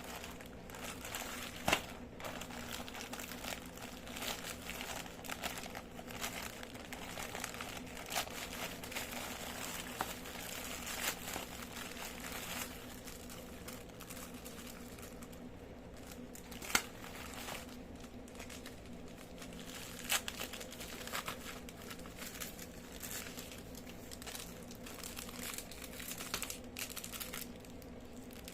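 Packaging of an online-shop parcel crinkling and rustling as it is handled and opened by hand, with a few louder sharp snaps along the way.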